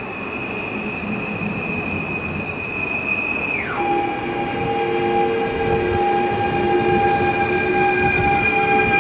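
Stadler FLIRT3 electric multiple unit pulling in to the platform and slowing to a stop, growing louder as it comes closer. It carries a high steady whine that drops sharply in pitch about three and a half seconds in, then holds at the lower pitch.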